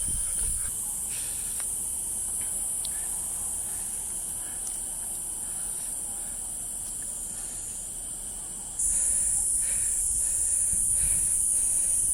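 Insect chorus making a steady high-pitched buzz, which turns suddenly louder about nine seconds in.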